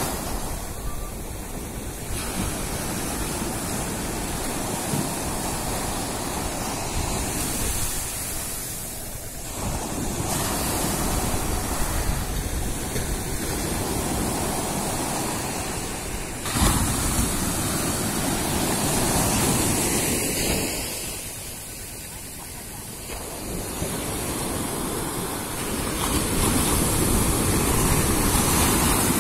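Sea surf breaking and washing up a sandy beach, with wind rushing on the microphone. The wash swells and eases in slow surges, with a sudden bump a little past halfway.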